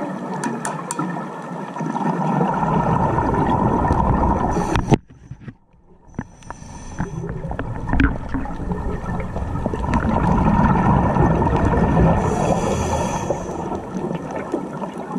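Underwater sound through a GoPro Hero5 housing: a muffled rumble and gurgling of a scuba diver's exhaust bubbles. It drops away for about a second about five seconds in, and a brief hiss comes twice later on.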